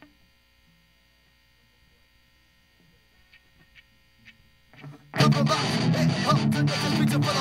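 Faint amplifier hum with four faint, evenly spaced clicks. About five seconds in, a punk rock band comes in loud with distorted electric guitar.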